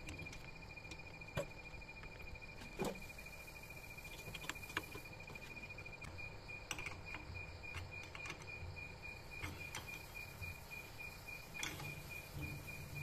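Scattered light metal clicks and knocks as a switched-off handheld tile cutter is fitted and adjusted on a homemade steel mounting bracket. A steady high-pitched pulsing trill runs throughout.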